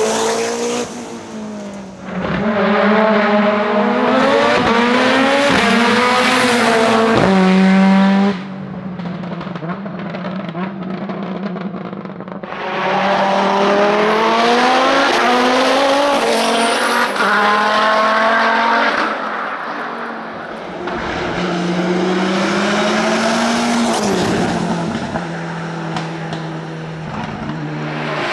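Touring race car engines at full throttle on a hillclimb, revving up hard and dropping back at each quick upshift, in several separate passes. One pass cuts off abruptly about eight seconds in.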